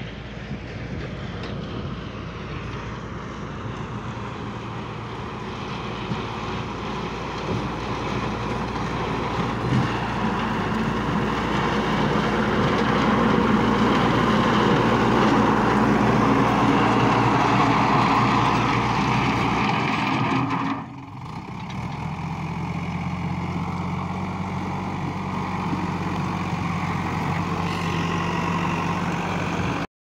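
JCB 3DX backhoe loader's Kirloskar diesel engine running under load as the front loader bucket pushes and levels gravel. It grows louder toward the middle, dips briefly about two-thirds through, then settles to a steady engine note.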